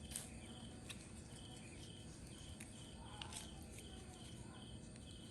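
Faint, steady insect chirping, short chirps at about two a second, with a few soft clicks.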